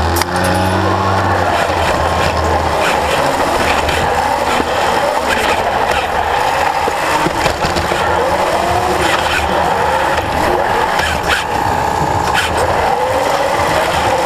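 A competition robot's electric drive motors and gearboxes whining as it drives, the pitch repeatedly rising and falling with its speed, over steady arena crowd noise.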